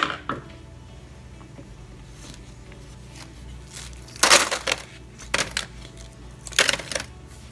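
A plastic ice cube tray being twisted, crackling and rattling as frozen lemon juice cubes crack loose and drop out: a sharp click at the start, then three loud bursts of crackling in the second half.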